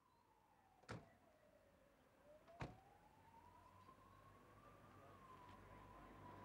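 Near silence, with a faint whine that slides down in pitch and then slowly climbs back up, and two short clicks about a second and a half apart.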